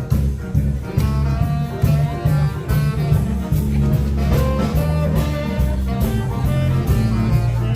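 Background music: a jazzy tune with horn-like melody lines over drums and bass, with a steady beat.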